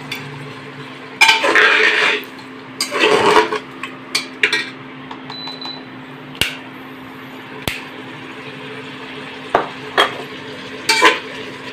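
Metal ladle scraping and stirring chicken masala in an aluminium pressure cooker, in two longer spells in the first few seconds, then single sharp clinks of metal on the pot now and then. A steady low hum runs underneath.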